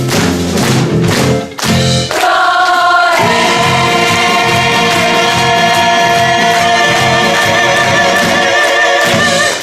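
A vocal group with accompaniment sings the close of an upbeat song: about two seconds of rhythmic singing broken by a short stop, then a long final chord held with vibrato by several voices, ending near the end.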